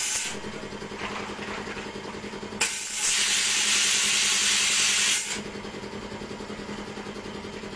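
Compressed air hissing from a plastic-float blow-moulding machine: a short blast ending just after the start, then a longer blast of about three seconds from about two and a half seconds in. Under it the machinery hums steadily.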